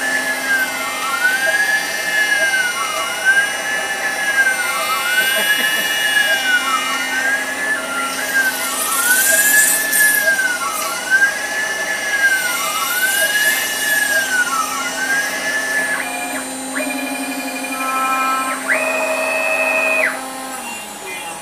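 6040 CNC router milling ABS plastic with a single-flute carbide end mill on a circular contour: the spindle runs steadily while the stepper motors whine in a pitch that rises and falls with each pass around the circle, about every second and a half. Near the end the cut stops, the steppers give two short steady tones as the head moves away, and the spindle winds down.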